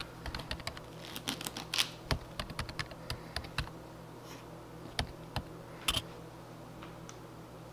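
Kitchen knife chopping mushrooms on a bamboo cutting board: a fast run of light taps on the wood, then two single knocks a few seconds later.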